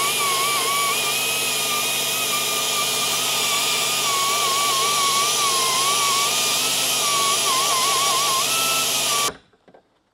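Small high-speed rotary tool grinding at a sheared suspension mounting bolt, a steady whine whose pitch dips and wavers each time the tool is pressed into the metal. It cuts off abruptly about nine seconds in.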